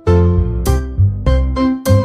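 Background music: a bright piano or keyboard tune with notes struck in a quick, even rhythm.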